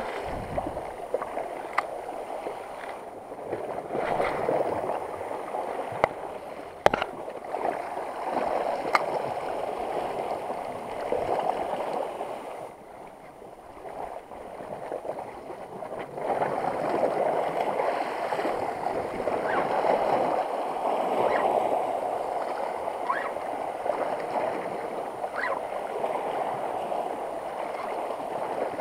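Sea water sloshing and lapping against shore rocks, swelling and easing every few seconds, with a few sharp clicks.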